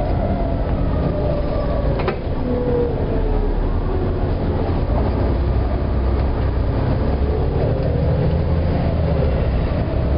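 Volvo B7TL double-decker bus running with a low rumble, while a strange wailing squeak comes and goes every few seconds, wavering and gliding in pitch. One sharp click about two seconds in.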